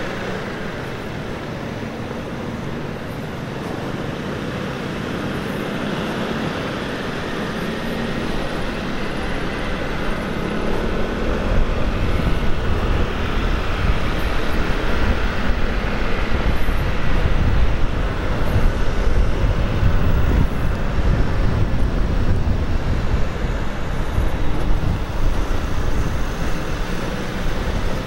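Steady road-traffic noise heard from a vehicle on a city avenue. A heavier low rumble comes in about a third of the way through and the whole sound grows a little louder.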